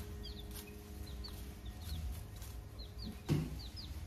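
A brood of young poultry chicks peeping: short, high chirps, each sliding downward, several a second. A single dull bump about three seconds in is the loudest sound.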